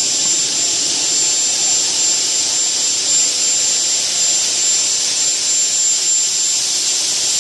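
CNC single-head aluminium cutting saw running steadily: an even, high-pitched hiss with a thin steady whistle on top. There are no separate cutting strokes or changes in pitch.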